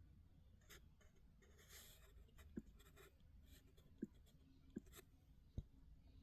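Faint scratching and rustling handling noise, with four short soft taps in the second half.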